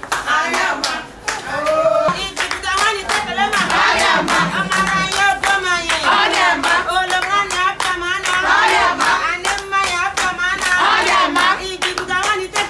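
A group of women singing a native traditional-marriage song together, with fast, steady hand clapping keeping the beat.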